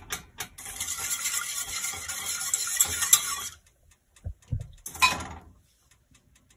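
Wire balloon whisk beating cheese sauce hard in a stainless steel saucepan: a fast, busy scraping and clinking of the wires against the pot for about three seconds. It stops for a few soft knocks as a handful of grated cheese goes in, then light whisk ticks near the end.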